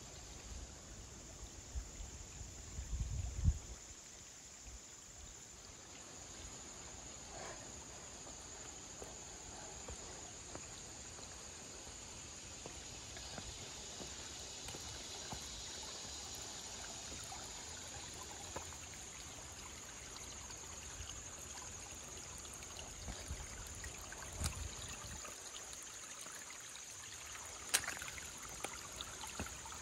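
Shallow water trickling over rocks in a stream, a soft steady sound, with brief low rumbles on the microphone about three seconds in and again near the end.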